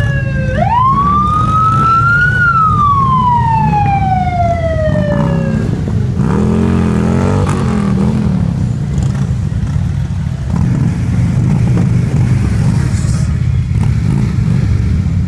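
Harley-Davidson touring motorcycles rumbling past while a siren wails: it swoops up about half a second in, then slowly falls and stops about five seconds in. A few seconds later an engine revs up and down, and the low rumble of the bikes continues.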